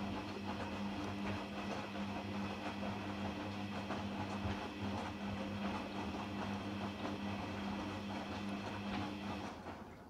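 Hoover Dynamic washing machine tumbling a load in its rinse with a very high water level: the drum motor hums steadily over sloshing water and clothes, then winds down and stops just before the end.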